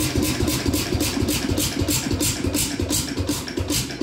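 Bamford air-cooled hit-and-miss stationary engine running, firing in a quick, even beat of about five pulses a second over a steady low hum. The engine is running fast.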